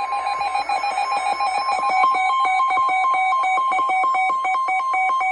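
NOAA Weather Radio's steady 1050 Hz warning alarm tone, the signal that an urgent warning broadcast follows. From about two seconds in, a rapid two-pitch beeping alert is layered over the steady tone.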